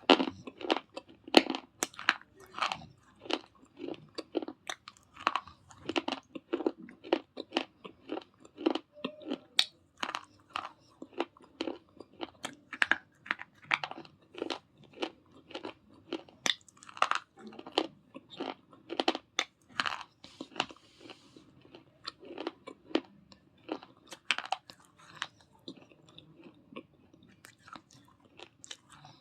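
A person biting and chewing brittle slate pencil and baked pot clay close to the microphone: an irregular run of sharp, dry crunches, several a second, with short pauses between bites.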